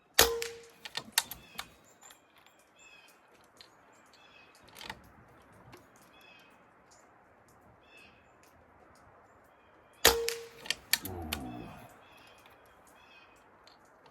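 Two moderated shots from a Benjamin Armada PCP air rifle, about ten seconds apart. Each is a sharp crack with a brief ring, followed by a few smaller clicks of the bolt being worked. Faint bird chirps between the shots.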